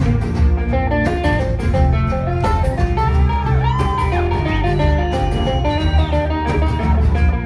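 Live acoustic band playing an instrumental passage with no singing: banjo and acoustic guitars picking quick notes, with fiddle over a steady low end.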